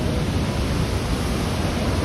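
Steady, loud rush of fast-flowing water, such as a river running beside the trail or a nearby waterfall.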